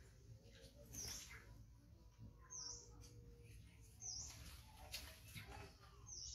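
Faint high-pitched animal chirps, a short call about every one and a half seconds.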